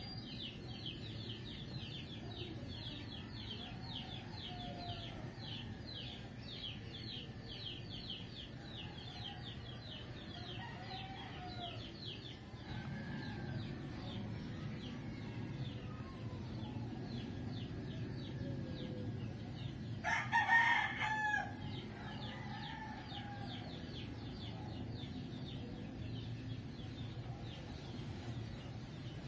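Steady fast high chirping with a low background hum, and about two-thirds of the way in a single loud bird call lasting about a second and a half.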